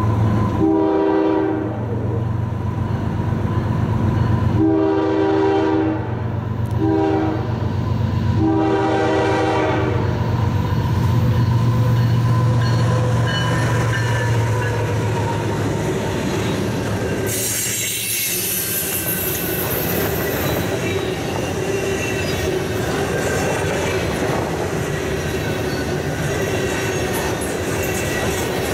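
Approaching diesel freight locomotive sounding its horn in the long, long, short, long grade-crossing pattern over the steady rumble of its engine. A little past halfway the lead units pass close with a sudden loud rush, and the railcars follow, clattering over the rails with faint wheel squeal.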